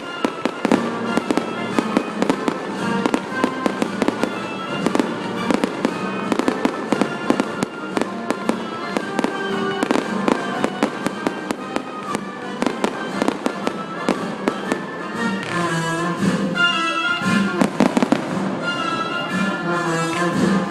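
Fireworks going off in rapid succession, many sharp bangs and crackles a second, thinning out near the end, with orchestral music playing underneath.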